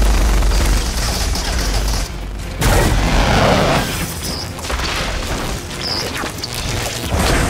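Action-movie battle sound effects: a heavy boom opens, then dense blasts and impacts of armoured suits fighting, louder again about three seconds in and near the end. Short zaps of electric whips come in the middle, with score music underneath.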